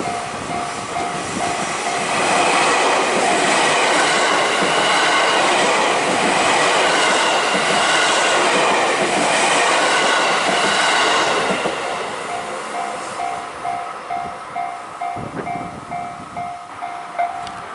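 A train passes at speed close by, loud for about ten seconds before it fades. A level-crossing warning bell is ringing in a steady repeated ding before the train arrives and again once it has gone.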